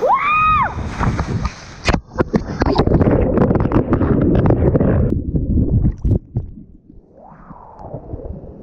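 Rushing slide water heard from a dropped action camera: a short whoop, then a loud churning rush of water with sharp knocks as the camera tumbles down the slide. About five seconds in the sound suddenly goes dull and muffled as the camera sinks under water.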